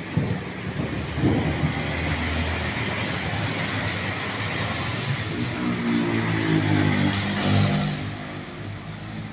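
Steady rain with a road vehicle's engine going by, its note rising and falling and loudest about seven seconds in before fading.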